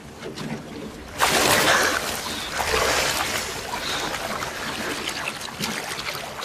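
A sudden loud splash about a second in as swimmers hit the sea, followed by continued splashing and sloshing of seawater around them.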